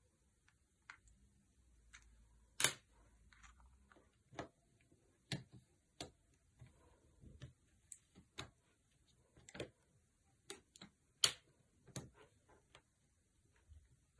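Irregular light clicks and taps from small tools and the plastic and metal parts of a Nokia Lumia 630 being handled on a work surface. Two clicks stand out as louder, one a few seconds in and one near the end.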